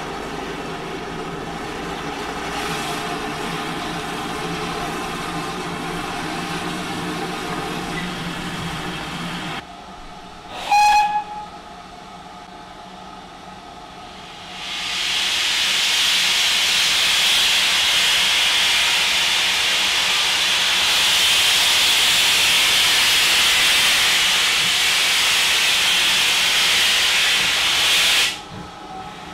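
Steam locomotive gives a short whistle blast, then a few seconds later lets off steam in a loud, steady hiss that lasts about thirteen seconds and cuts off sharply near the end. Before the whistle there is a steady low hum from the engine standing at the platform.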